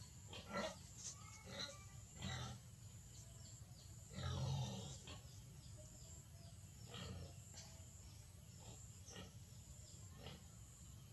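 Faint short animal calls and grunts, repeated several times, the longest and loudest about four seconds in.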